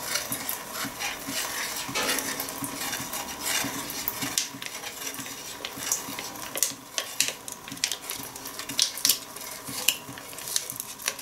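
A plastic spoon stirring milk in a stainless steel pot, whirling it into a funnel, with many small knocks and scrapes against the pot while a sachet of powdered starter culture is shaken in.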